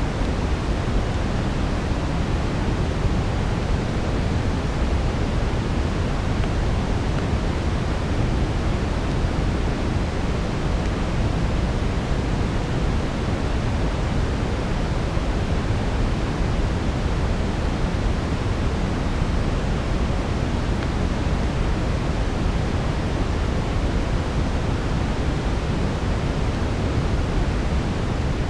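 Steady brown noise, a deep, even rushing hiss heaviest in the low end, blended with a soft fireplace crackle texture.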